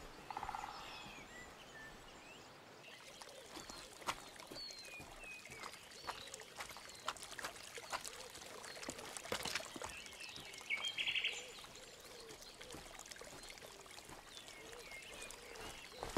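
Outdoor ambience with small birds chirping and trilling, and scattered sharp clicks and snaps.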